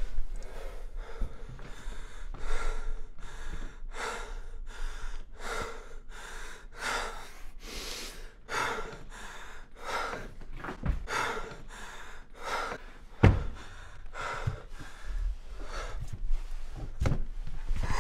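A man breathing hard in ragged, gasping breaths, about two a second, in and out through an open mouth. A few dull low thumps come in between, the loudest about thirteen seconds in.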